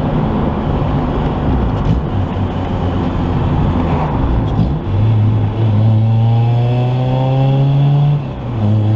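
Integra GSR's four-cylinder VTEC engine driving over road noise. About five seconds in it begins to accelerate, its note climbing steadily. It drops briefly at an upshift near the end, then climbs again.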